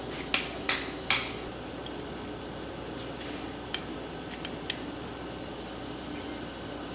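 Hammer strikes on metal: three sharp, ringing blows in quick succession near the start, followed a few seconds later by three lighter metallic clinks.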